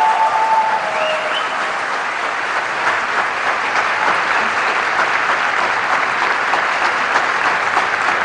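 Concert-hall audience applauding steadily, many hands clapping together at the close of a song. A brief high rising tone cuts through about a second in.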